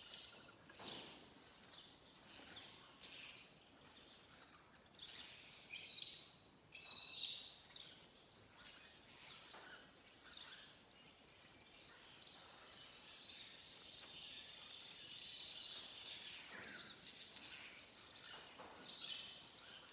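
Faint scraping and clinking of rusty barbed wire and tie wire being handled and twisted at the joins of a wire ball frame, with bird calls in the background.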